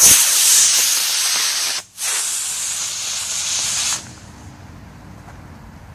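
Model rocket motors burning with a loud rushing hiss. The Estes D12-0 booster burns for about two seconds and cuts out for a split second as the stages separate. The Estes C6-5 second stage then lights and hisses for about two more seconds before burning out.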